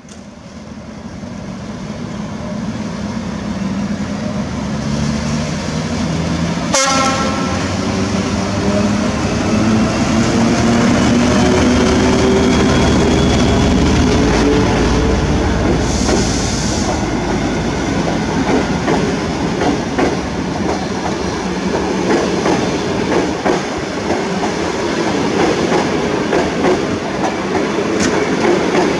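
Czech class 754 diesel-electric locomotive pulling away with a passenger train, its engine note rising steadily as it accelerates. A short horn toot sounds about seven seconds in and a brief hiss near the middle. Then the coaches pass with the clickety-clack of wheels over rail joints.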